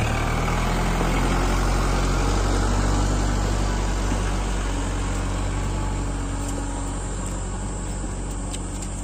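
Kubota MU4501 tractor's four-cylinder diesel engine running steadily as it pulls a trolley, growing slightly fainter toward the end.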